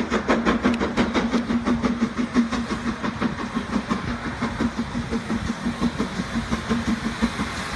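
A train running, its wheels clicking over rail joints in a quick even rhythm of about five clicks a second that slows a little, over a steady hum.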